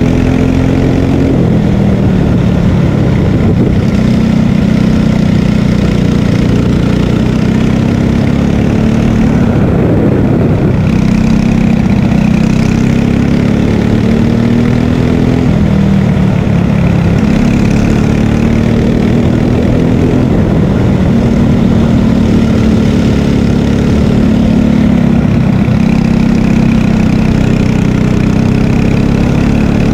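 Margay Ignite K3 racing kart's engine running hard at speed, its pitch climbing along the straights and dropping several times as the driver lifts for corners.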